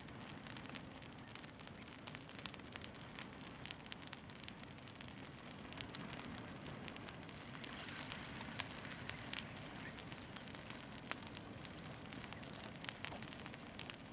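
Brush fire of dry evergreen branches and boughs burning, crackling steadily with many sharp irregular snaps and pops over a faint hiss.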